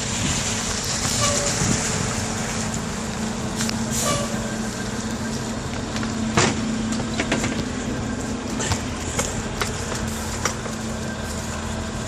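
Bicycle riding on a snowy street: steady tyre and wind noise with a steady low hum and scattered clicks.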